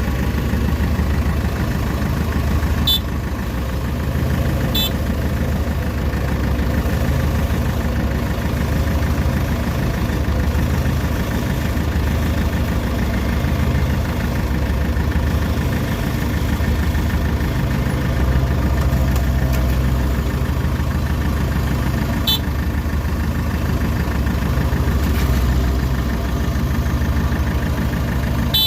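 Kubota DC93 combine harvester's diesel engine running steadily under a towing load, with a few brief sharp clicks.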